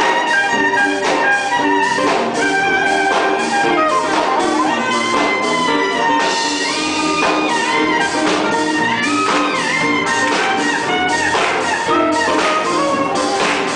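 An orchestra plays an instrumental piece, with brass holding notes over a steady percussive beat.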